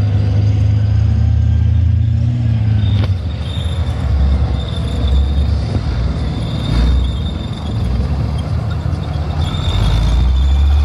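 Leopard tank driving past on its tracks: a loud, steady low engine rumble with a thin high whine over it, easing a little partway through and swelling again near the end as the tank comes close.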